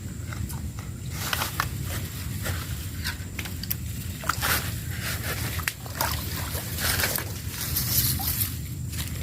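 Irregular rustling, crackling and small splashes as swamp grass and water are disturbed while a snagged fish is worked free, over a steady low rumble.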